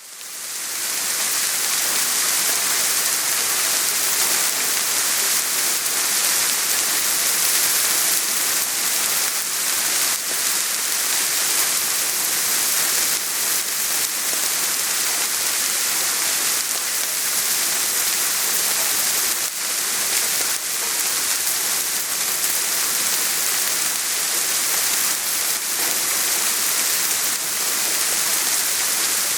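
Steady soft rain falling, an even hiss with scattered drop patter, fading in over the first half second.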